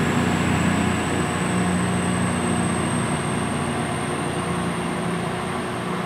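Class 221 Super Voyager diesel multiple unit pulling out of the station, its underfloor diesel engines running with a steady low drone and a thin high-pitched whine, gradually fading as it moves away.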